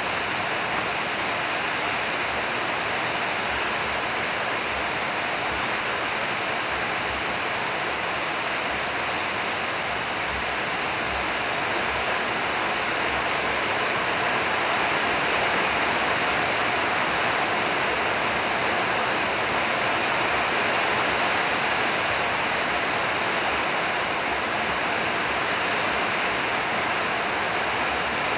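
A steady, even rushing noise, slightly louder in the middle of the stretch.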